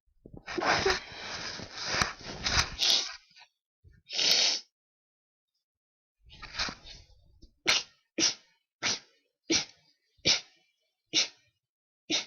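A person's sneezing fit, with hay-fever allergies behind it. First comes a long sneeze with sharp knocks, likely the hand-held microphone being handled, then another sneeze at about four seconds. Then comes a quick run of about eight short sneezes, each less than a second apart.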